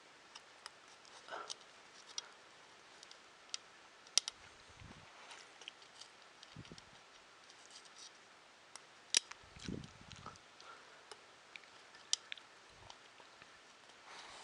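Small parts of a 3D printer kit being handled and fitted: scattered light clicks and taps of small pieces, with a few soft low thumps.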